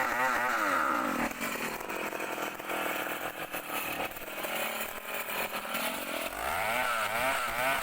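Chainsaw engine running and revving, its pitch repeatedly rising and falling.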